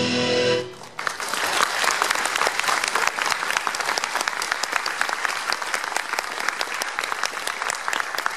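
Music over hall speakers stops within the first second, then a large audience claps steadily, a dense crackle of applause that eases slightly near the end.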